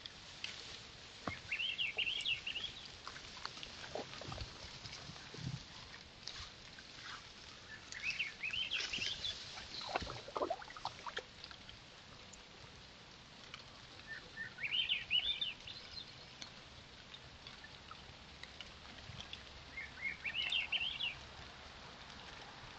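Swainson's thrush singing its fluty, upward-spiralling song in four phrases a few seconds apart, with a few short, lower sounds between the phrases about four and ten seconds in.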